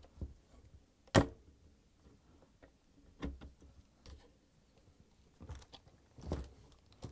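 Large pliers working a non-reusable metal hose clamp off the heater-to-circulation-pump connection of a dishwasher: a few scattered sharp clicks and snaps, the loudest about a second in.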